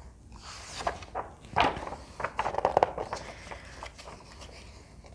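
A hardcover picture book's page being turned by hand: paper rustling and sliding, with a few short soft knocks as the page is flipped over and pressed flat, over about three seconds.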